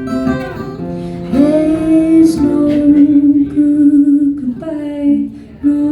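A woman singing long held notes over a strummed acoustic guitar strung in Nashville (high-strung) tuning.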